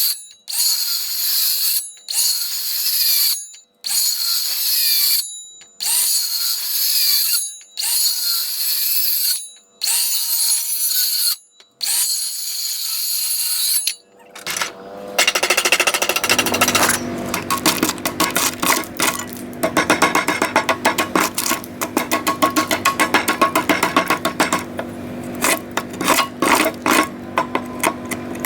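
Cordless drill driving screws into 2x4 lumber in about eight short trigger bursts, each spinning up quickly and stopping. About halfway through it changes to a continuous rapid hammering clatter over a low hum.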